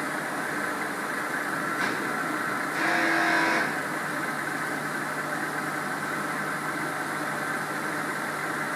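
MAHO MH 700 C CNC milling machine running with a steady mechanical hum. A brief click comes about two seconds in, then a louder whirring burst with a whine lasts just under a second, about three seconds in.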